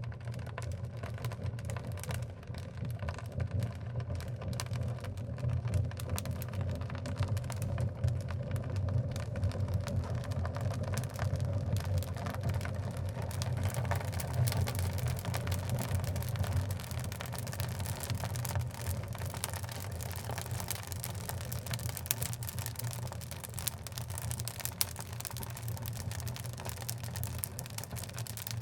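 Oak logs burning in a wood fireplace: a steady low rumble of flames with many small crackles and pops, which grow more frequent about halfway through.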